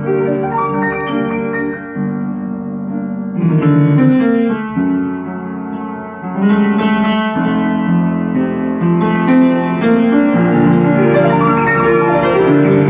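Background music led by a piano or keyboard, playing a melody over held chords.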